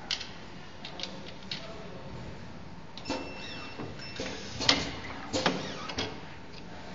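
Clicks and knocks of hard plastic shell parts being handled and set into the plastic fixture of a flat screen printing machine, a few scattered clicks at first and a busier run of clatter in the middle.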